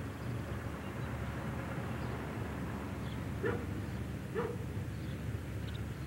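A dog barking twice, about a second apart, near the middle, over a steady low outdoor background.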